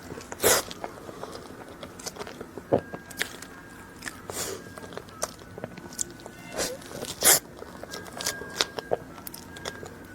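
Close-miked eating: bites and chewing with irregular sharp crunches and crackles, the loudest about half a second in and again about seven seconds in.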